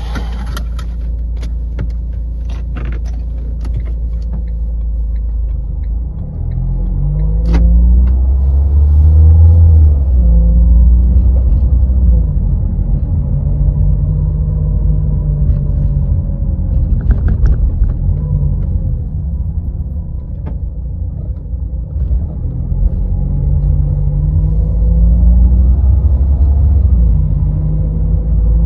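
A Renault car's engine and road rumble while driving, with the engine pitch rising as it pulls through the gears, holding, easing off and rising again. A few sharp clicks come in the first few seconds.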